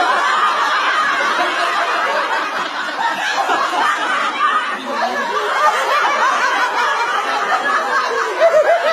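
Laughter: a woman laughing without a break, with no words spoken.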